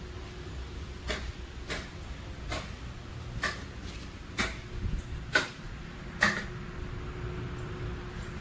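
A series of seven sharp knocks or taps, roughly one a second and unevenly spaced, over a faint steady hum and low rumble.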